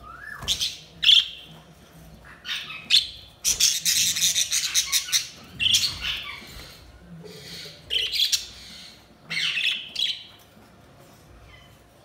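Budgerigars chirping and chattering in short bursts, with a dense run of chatter about four seconds in, tailing off near the end.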